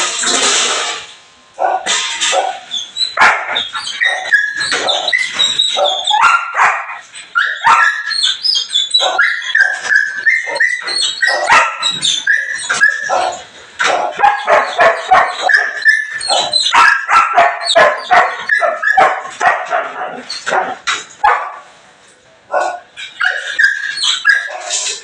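Belgian Malinois barking and yipping almost without pause, with short lulls about a second in and near the end.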